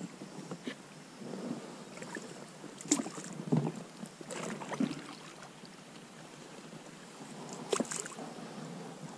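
Small boat drifting on a river: scattered knocks and clicks against a low water and air haze, sharpest about three seconds in and again near the end.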